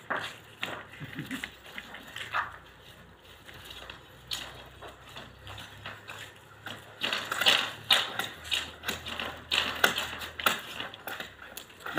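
Bamboo poles and split strips knocking and clicking against each other as they are handled, irregular at first and coming thick and fast for the last few seconds.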